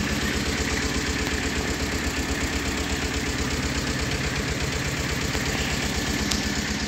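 Vehicle engine idling steadily with an even, rapid low pulse.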